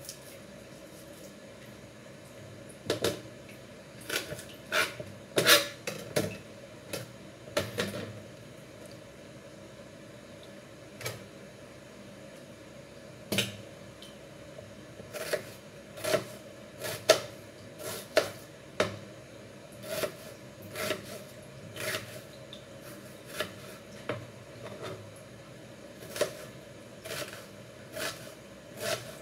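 Kitchen knife cutting a red onion, the blade knocking sharply on a plastic cutting board in irregular single strokes about every half second to a second, starting about three seconds in.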